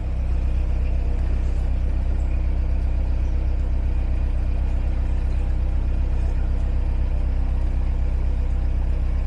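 Narrowboat's diesel engine running steadily under way, a low, even drone.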